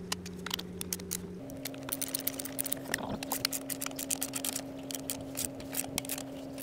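Quick light clicks and taps of hands handling metal tools and parts at a motorcycle's clutch cover, over a steady hum that steps up in pitch about a second and a half in.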